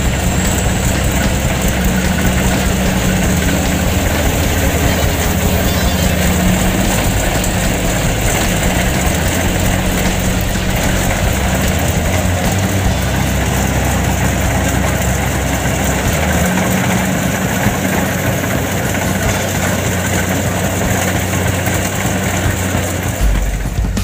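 Kubota DC70 Plus rice combine harvester running steadily as it works through the paddy: a constant diesel engine hum with machinery noise over it.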